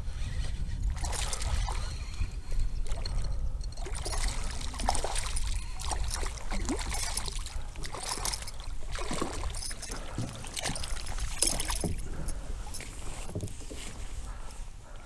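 Water splashing around a kayak in a run of separate splashes, with a low rumble of wind on the microphone underneath.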